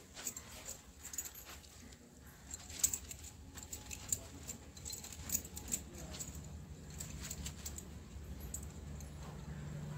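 Wet cloth being rubbed and scrunched by hand in detergent powder, with the wearer's bangles clinking in quick, irregular clicks. A low steady hum comes in about six seconds in.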